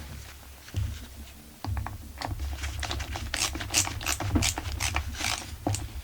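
Irregular light clicks and scrapes of small metal chainsaw parts and a hand tool being handled and fitted, coming thicker from about a second and a half in.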